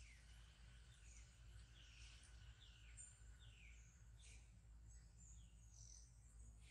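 A string of faint, short high-pitched chirps from a small animal, each falling in pitch, coming about once or twice a second over a low steady hum.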